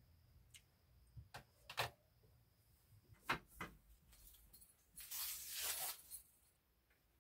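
Faint handling sounds of bedding and a mosquito net being moved about on a bed: a few sharp knocks and clicks, then about a second of fabric rustling near the end.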